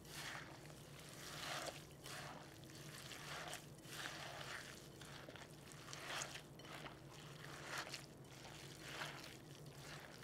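Hands kneading and squeezing a wet ground-beef meatball mixture in a glass bowl: faint, soft squishing strokes about once a second.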